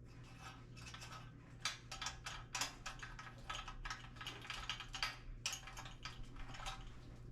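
Light, irregular metallic clicks and taps as a nut and bolt are fitted by hand through the tank mounting bracket on a mini chopper frame, with a faint steady low hum underneath.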